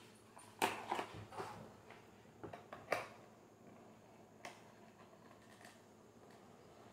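A knife blade cutting tape on a clear plastic box: a few scattered scratches and sharp clicks of the blade on tape and plastic, the loudest about three seconds in.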